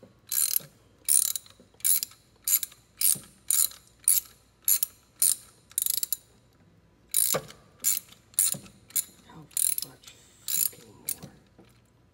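Socket ratchet wrench swung back and forth, each back-stroke giving a quick run of clicks from the pawl, roughly two strokes a second, as a spark plug that has just been broken loose is backed out. The strokes pause briefly about six seconds in, then resume and stop near the end.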